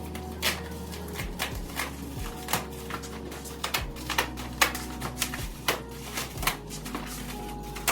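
Irregular clicks and rustles of packaging and parts being handled, over background music with steady low bass notes.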